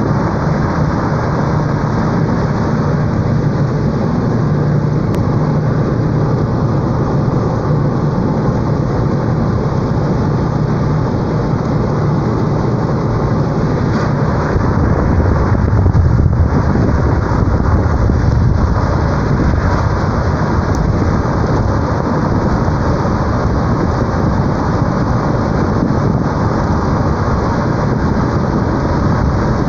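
Strong storm wind rushing and rumbling without a break, swelling a little louder about halfway through.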